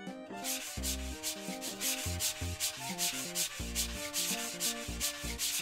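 A small sponge scrubbed back and forth over a paper toy-book page, a scratchy rubbing at about four strokes a second that starts about half a second in.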